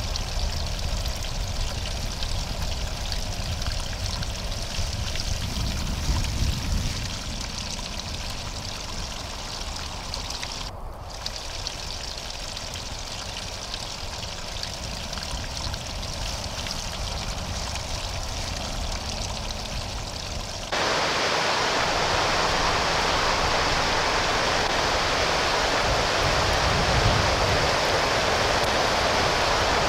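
Water trickling down a muddy bank. About two-thirds of the way in it switches abruptly to a louder, steady rush of flowing river water.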